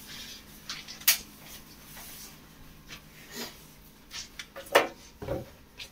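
A few scattered clicks and knocks of someone climbing back up a stepladder, with a sharp click about a second in and a louder knock and low thud near the end.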